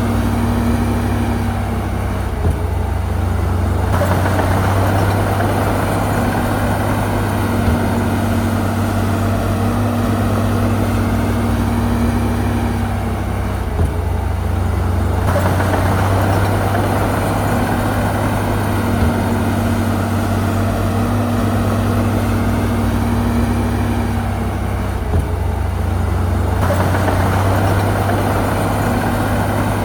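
Heavy diesel engine of a bulldozer running steadily, its sound swelling and easing in a regular cycle about every eleven seconds.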